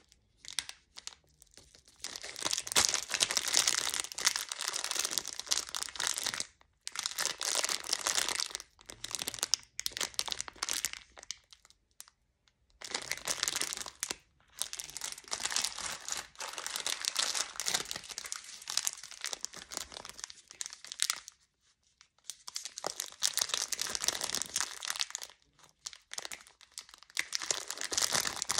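Clear plastic candy wrappers crinkling as they are handled, in stretches of several seconds with short pauses between.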